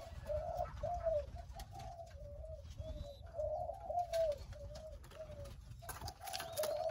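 Dove cooing in a long run of short repeated notes. A faint, thin chirp from a small bird comes about three seconds in.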